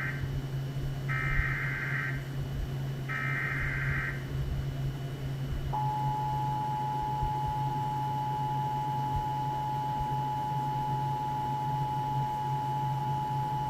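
Emergency Alert System broadcast: the tail of one SAME header data burst and two more, each about a second of warbling digital tone a second apart. About six seconds in, the steady two-tone EAS attention signal (853 and 960 Hz) starts and holds, announcing the warning that follows. A steady low hum runs underneath.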